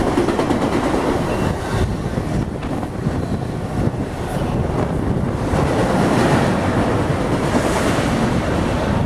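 Norfolk Southern intermodal train's container and trailer cars passing at speed close by: a loud, steady rush of steel wheels on rail and displaced air, with the train's wind buffeting the microphone.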